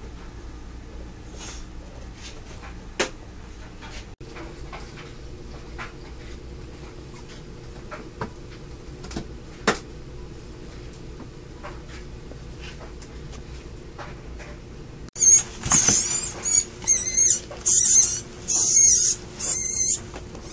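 Faint scattered clicks and knocks over a low hum, then from about three-quarters of the way in a rapid series of loud, high-pitched, wavering squeals: a feeder rodent squealing in a Savannah monitor's jaws.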